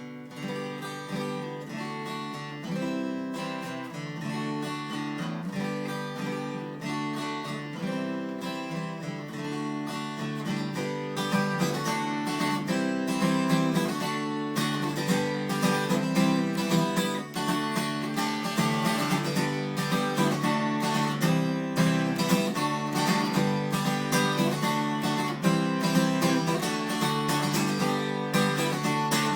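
Yamaha FG340 Mark II acoustic guitar strung with 11-gauge strings, strummed in a steady run of chords. It gets somewhat louder about eleven seconds in.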